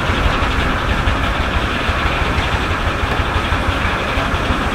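Stationary sawmill running, belt-driven by a 1927 Rumely OilPull Model E tractor's two-cylinder kerosene engine: a steady, loud mix of engine beat and machinery noise.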